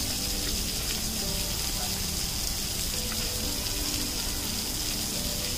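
Steady hiss of water spraying down from an overhead shower and spattering onto an elephant and a wet concrete floor.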